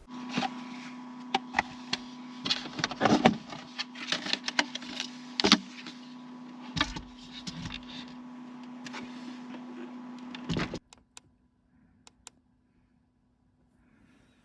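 Small electric motor humming steadily, with clicks and rustling of handling over it, cutting off about eleven seconds in.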